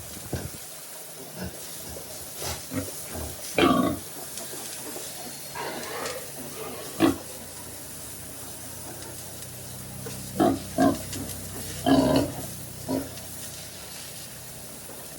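Pigs giving short, separate calls every second or few, over a steady hiss. The calls bunch up about four seconds in, around seven seconds, and again from about ten to thirteen seconds in.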